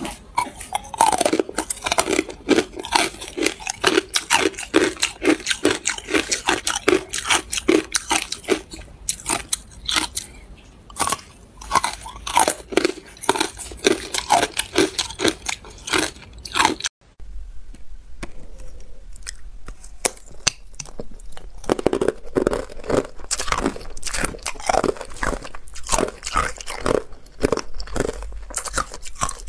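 Matcha-powder-coated ice being bitten and chewed close to the microphone: rapid, crisp crunching and cracking. First it is a thick piece of ice, then after a brief break about halfway through, thin ice sheets.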